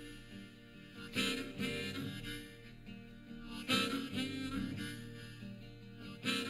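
Instrumental music played back through a home wireless speaker: sustained reed-like melody notes over a bass line, with fresh notes coming in about a second in and again near four seconds, and no vocals.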